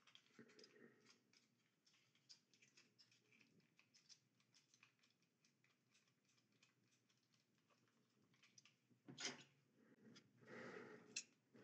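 Near silence: faint, scattered small clicks of fingers working a Flipper Zero's plastic case and circuit board, with one louder click about nine seconds in.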